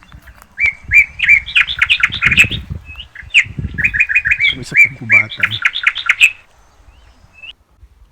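A bird chirping in two long runs of quick, high repeated notes with a short pause between them, then stopping about six seconds in.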